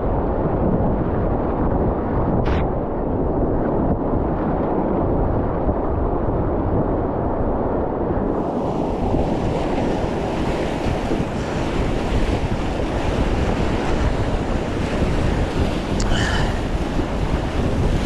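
Whitewater rapid rushing loudly and steadily around an inflatable kayak running it, with wind buffeting the microphone; a brighter hiss joins about halfway through.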